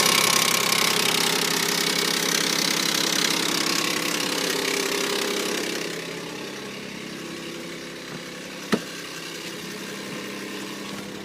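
2003 Mitsubishi Eclipse GTS's V6 engine idling just after a cold start with a loud rattling clatter that eases about six seconds in to a quieter idle; a single sharp click comes near the end. The owner says it sounds terrible, like the timing cover, and notes that these engines are said to make this noise when cold until they warm up.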